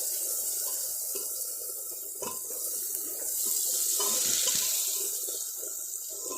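Onion, tomato and turmeric masala sizzling in hot mustard oil: a steady frying hiss with a few light clicks, swelling slightly about four seconds in.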